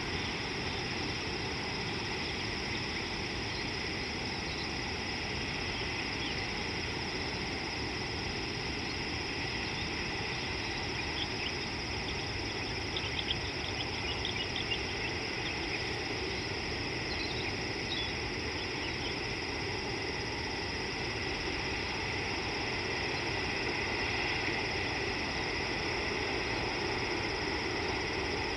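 Steady outdoor ambience: a constant hiss with a high, unbroken insect drone, and a few faint high chirps about halfway through.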